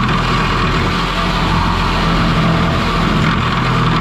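Angle grinder running steadily under power, a loud, even whine over a low motor hum.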